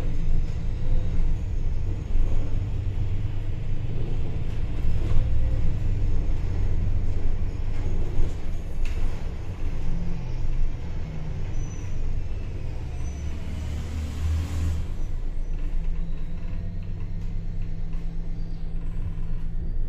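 City bus running along the road: a steady low engine and road rumble, with a short hiss about two-thirds of the way through.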